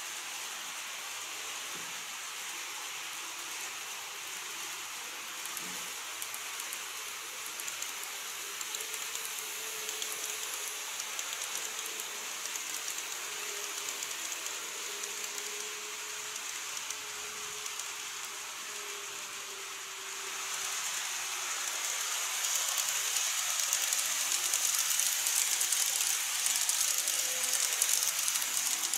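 A model JR Kyushu 813 series electric train running along the track: a steady hiss of rolling wheels with fine rapid clicking, and a faint motor hum in the middle. It grows louder about two-thirds of the way through as the train runs close by.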